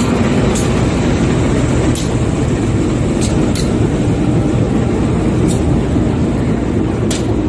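CC 201 diesel-electric locomotive running close by, just uncoupled from its train for shunting: a steady low engine rumble, with a few sharp clicks over it.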